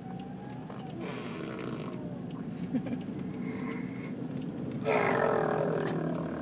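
A child making a funny raspy, grunting noise with her voice, louder about five seconds in and sliding down in pitch, with a fainter rasp about a second in.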